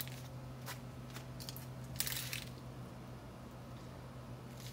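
A few small clicks and a brief scuffing rustle about two seconds in, the handling noise and footsteps of someone walking around with the camera, over a steady low hum.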